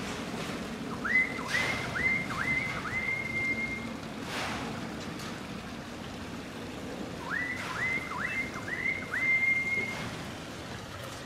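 A person whistling a call: two runs of four or five short notes that each slide up and level off, the last note of each run held longer, about five seconds apart.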